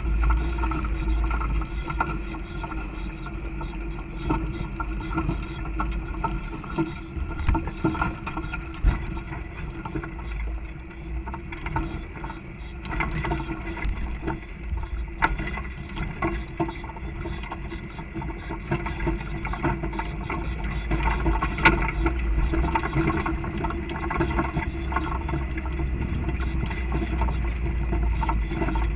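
Off-road 4x4 engine running steadily at low speed with a low rumble, as the vehicle crawls over a rocky dirt trail. Frequent knocks and rattles come from the body and suspension jolting on the rocks.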